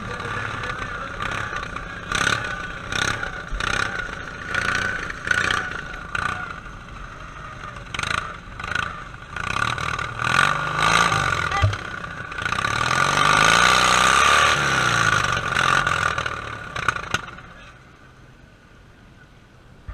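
Briggs & Stratton V-twin engine of a racing lawn tractor running hard, its pitch rising and falling as it is revved through the turns, with frequent sharp knocks and clatter from the tractor bouncing over the rough grass track. About 17 seconds in the engine sound drops away to faint as the tractor stops.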